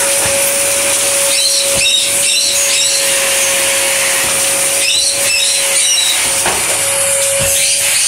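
Vacuum cleaner running steadily, a constant whine over a strong airflow hiss, as its floor nozzle is pushed back and forth over carpet.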